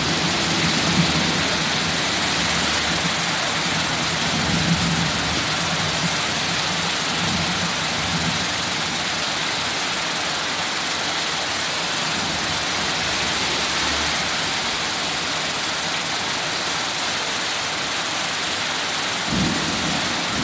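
Heavy rain pouring down in a steady hiss during a thunderstorm, with a low rumble over the first few seconds that dies away.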